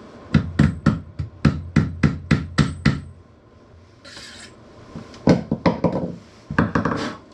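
Hammer blows on a metal pipe used as a makeshift press tool to drive a bicycle headset part down: about ten quick knocks in the first three seconds, a short scrape after a pause, then two more short runs of blows.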